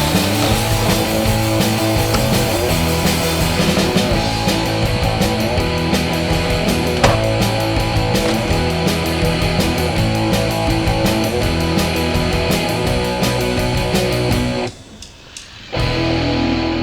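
Distorted electric-guitar rock music with a steady beat; it drops out briefly near the end, then comes back in.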